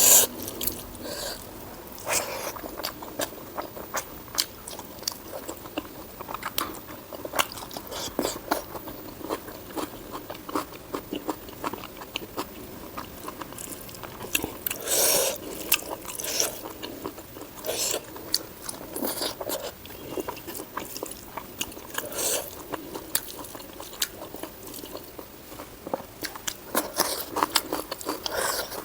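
Close-miked chewing and biting of spicy pork and white rice: wet mouth smacks, squelches and occasional crunches, coming in quick irregular bursts.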